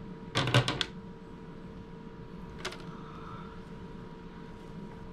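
Metal bread-machine baking pan set down on a wire cooling rack, pan and wire handle clattering: a quick run of clicks about half a second in, then one more click a little before the middle, over a faint steady hum.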